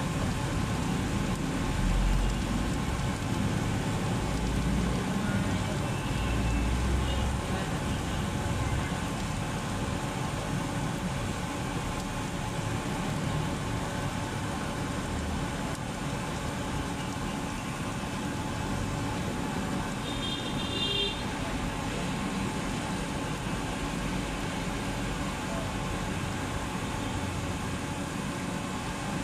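Steady outdoor street ambience: low traffic rumble with faint background voices, swelling for the first several seconds. A short high-pitched tone sounds once about twenty seconds in.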